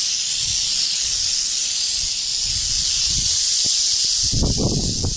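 Rattlesnakes rattling: a continuous high buzzing hiss from several coiled snakes at their den. Low thuds and rustling join it about four seconds in.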